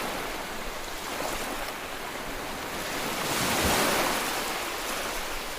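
Ocean waves washing ashore in a steady rush, with one wave swelling louder about two-thirds of the way in.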